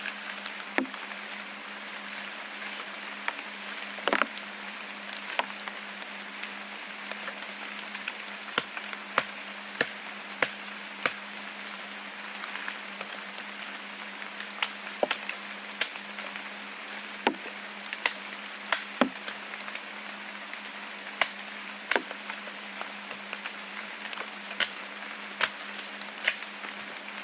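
Irregular sharp knocks or clicks, some louder than others, over a steady hiss and a low steady hum.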